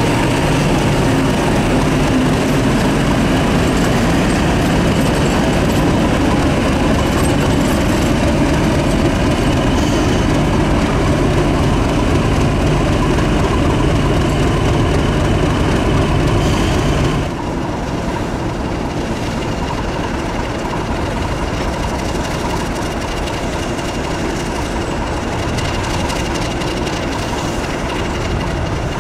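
Class 50 diesel locomotive's English Electric 16-cylinder engine running with a steady heavy drone and a held whine above it. About 17 seconds in it cuts off abruptly to a quieter steady rumble and hiss.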